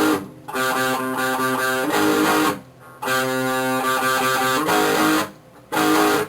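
Guitar music: sustained strummed chords in short phrases, broken by brief pauses.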